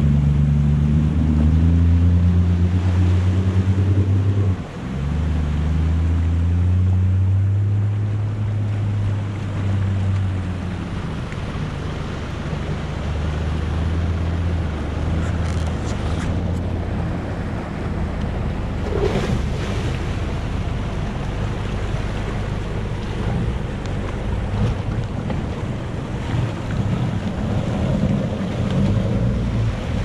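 Four-wheel-drive engines, a Toyota LandCruiser 80 Series and then a Nissan Patrol, working low in gear as they wade through a creek, with water washing around the bull bars and wheels. The engine note rises and falls over the first ten seconds, then runs steadier. Wind buffets the microphone.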